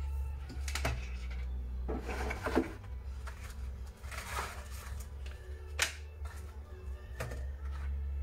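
Light clicks, taps and rustling of hands handling small printer fuser parts and a piece of cardboard, with a longer rustle about four seconds in, over background music.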